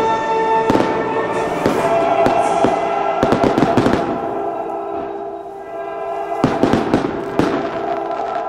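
Aerial fireworks shells bursting in a rapid volley of bangs, easing off around the middle, then a second cluster of bangs, with music playing throughout.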